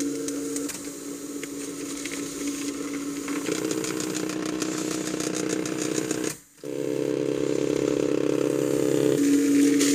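Silver Reed EB50 pen plotter's two stepper motors buzzing as the pen draws lines, the pitch shifting about three times as the motors run at different speeds for different line angles. Near the middle the motors stop for a fraction of a second before starting again.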